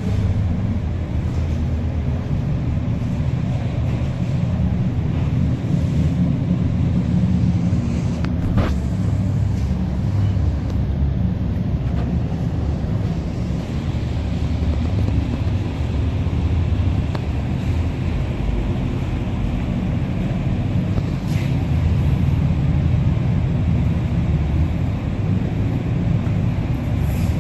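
Cream mixer machine running: a steady low rumble and hum from its motors and pump, with a faint click now and then.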